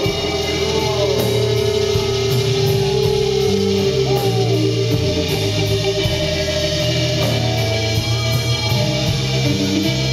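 Live rock band playing loudly: distorted electric guitars with a long held note, bass and drums keeping a steady beat, with a voice singing in the first half.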